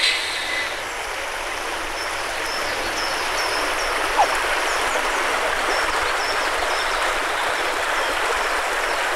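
Shallow upland stream running over a stony bed, a steady rushing of water. It opens on the fading tail of a person's 'shh'.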